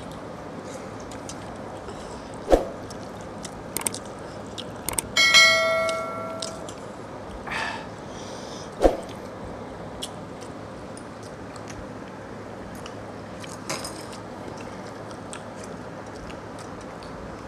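Stainless steel dishes clinking as hands eat from them: one ringing metallic clang about five seconds in that fades over about a second, two sharp knocks, and small clicks over a steady hiss.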